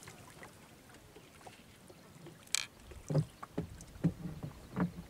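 Small sounds from a wooden boat and the water as a cast net's hand line is drawn in after the throw: quiet at first, then one sharp click about halfway through, followed by a few short soft knocks and splashes.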